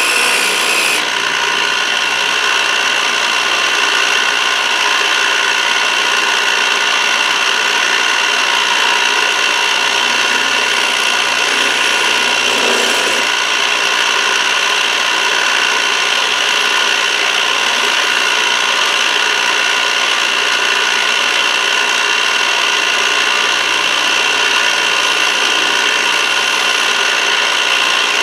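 Milling machine end mill cutting a copper bar: a steady, high-pitched machining whine over a constant grinding cutting noise, running evenly as the cutter feeds along the edge of the bar.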